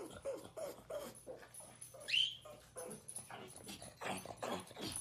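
Pug whimpering in quick, repeated short whines, with one sharp high squeal about two seconds in, the loudest sound.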